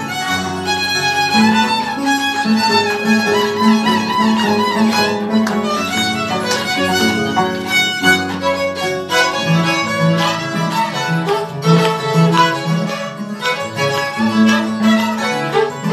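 Peruvian jarana played on violin and harp: the violin carries the melody over the harp's plucked bass notes, which repeat in a steady, lively rhythm.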